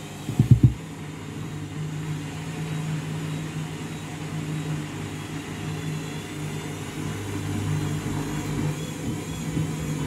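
Candy front-loading washing machine on its intermediate spin, with a steady motor hum and drum rumble; the load is a bit out of balance. A quick cluster of loud knocks comes about half a second in, and the hum weakens through the middle before strengthening again near the end.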